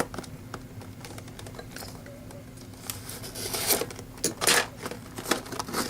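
Toy packaging being opened by hand: scattered clicks and rustling, with a louder burst of rustling near the end as it comes open.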